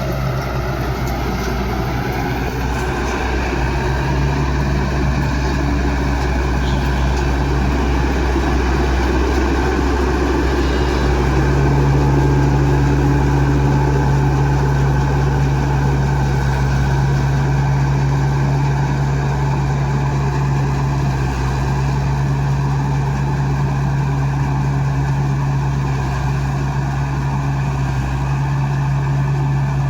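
Combine harvester's diesel engine running steadily, a constant drone with its machinery working. It gets slightly louder about a third of the way in.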